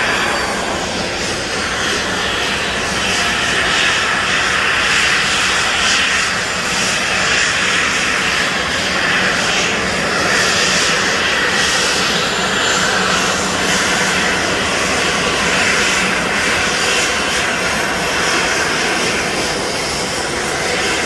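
Jet airliner's engines running on the apron: a steady rush of engine noise with a faint high whine that slowly falls in pitch.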